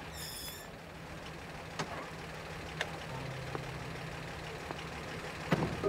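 Vintage car engine idling with a steady low hum, with two sharp clicks as a car door is opened and a heavier thump near the end as it is shut.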